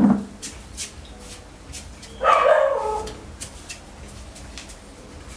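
A dog barking once, a single drawn-out bark falling in pitch about two seconds in.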